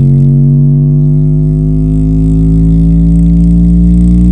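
Subwoofer playing a loud, heavily bass-boosted tone whose pitch slowly rises, thick with distortion.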